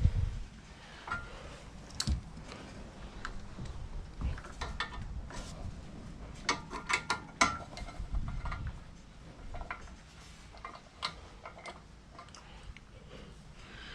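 Ratchet wrench clicking and metal clinks as bolts are run in, with a quick cluster of clicks about halfway through.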